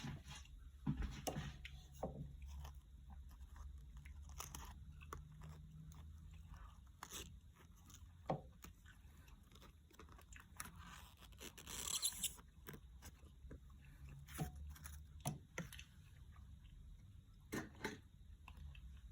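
Scattered faint clicks, taps and crackles of plastic packaging being handled and prised open with tongs, with a longer scraping rustle about twelve seconds in.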